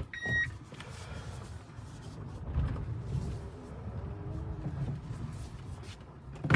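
A single short electronic beep at the start, as the Hyundai Verna goes into reverse and its reversing camera comes on, then the low, steady rumble of the car creeping backwards over gravel, heard inside the cabin. A sharp knock near the end is the loudest sound.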